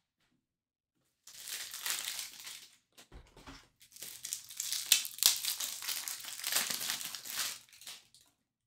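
Plastic wrapping crinkling and tearing as it is handled and pulled open. It comes in two spells of crackle, with a short lull and a soft low thud about three seconds in.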